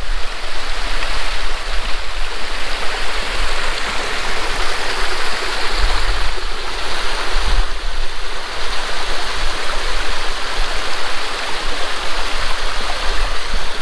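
Mountain stream rushing: a steady, loud rush of water with no let-up.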